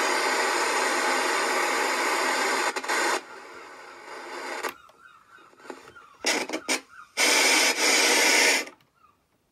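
Loud static hiss from the speaker of a 1984 Panasonic-made Boots RTV 5 TV/clock radio, off station as its controls are worked. The hiss drops away about three seconds in, comes back in short broken bursts, then a final loud stretch cuts off suddenly near the end.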